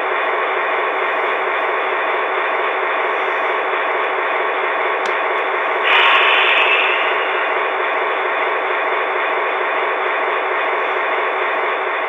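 QSI Quantum sound decoder in an HO-scale Atlas Fairbanks-Morse Train Master diesel, playing its recorded diesel engine sound through the model's on-board speaker, running steadily with the locomotive standing still. A brief louder hiss comes about six seconds in.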